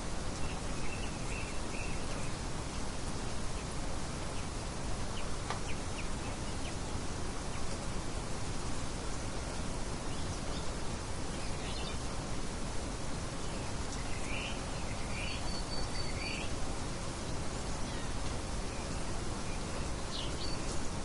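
Steady wind hiss with a few short bird chirps over it: one near the start, a quick group of three about two-thirds of the way through, and one near the end.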